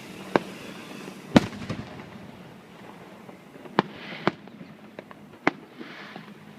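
Aerial fireworks bursting overhead: sharp bangs at irregular intervals, the loudest about a second and a half in, with bursts of hissing crackle between them.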